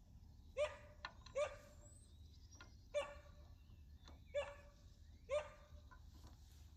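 A dog barking: five short, unevenly spaced barks.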